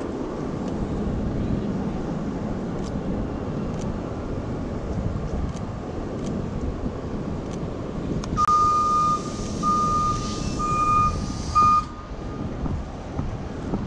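Steady low rumble of city street noise, and about two-thirds of the way through, a vehicle's electronic warning beeper sounding four high beeps over roughly three seconds.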